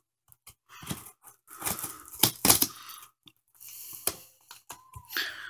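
Scissors snipping through packing tape on a cardboard box: a series of sharp snips mixed with scraping and tearing of the tape and cardboard.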